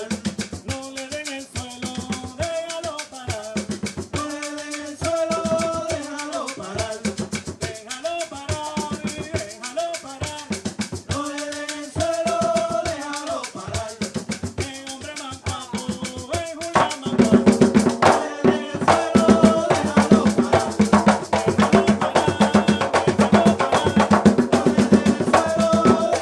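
Live Puerto Rican bomba: barril drums played by hand, sticks beating a steady pattern on the cuá, and a maraca, with singing over the rhythm. About seventeen seconds in the drumming grows louder and denser.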